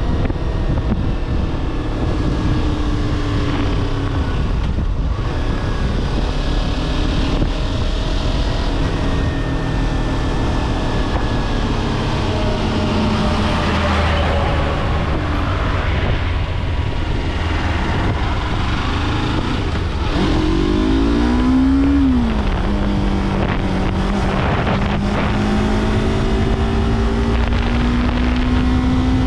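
Yamaha R3's parallel-twin engine running under way, its pitch easing down and rising gently through the bends. Once, about two-thirds of the way in, it revs up quickly and then drops sharply at a gear change.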